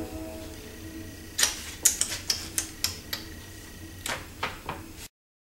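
A series of sharp, irregular clicks and knocks, about a dozen over three seconds, over the faint lingering tone of a distant train horn. The sound cuts off abruptly near the end.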